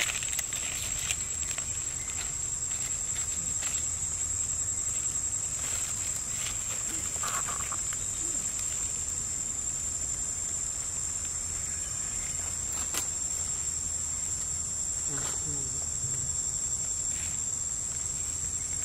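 Steady high-pitched insect drone with no break, over faint scattered rustles and clicks.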